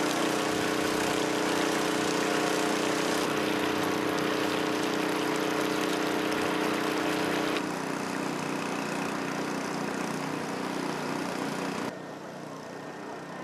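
Small engine-driven water pumps running steadily, pumping floodwater out of homes; the engine sound changes abruptly about halfway through and again near the end.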